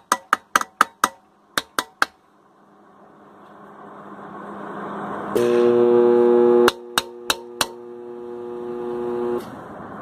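A lightweight sledgehammer tapping on the steel shell of a seized scroll compressor, about nine quick knocks in two seconds. About five seconds in, a loud electrical hum starts as the compressor is energized against its locked rotor and fails to turn. The hum drops to a quieter level with three more taps, then cuts off shortly before the end.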